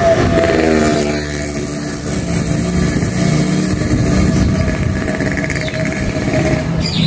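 A motorcycle engine passes close by, its pitch dropping as it goes past in the first second. An engine then runs on steadily.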